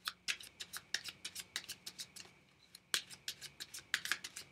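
A deck of Fournier 605 playing cards being cut and handled between two hands: a quick, irregular run of sharp card clicks and snaps.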